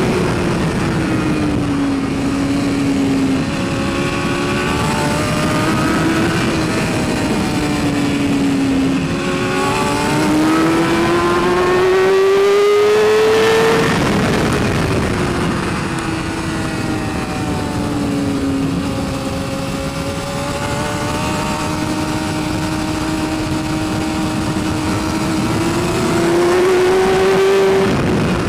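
2012 BMW S1000RR's inline-four engine at racing speed, heard from a helmet camera with steady wind rush. The engine note keeps dipping and climbing with the throttle, with one long climb from about nine seconds in that drops away at about fourteen seconds.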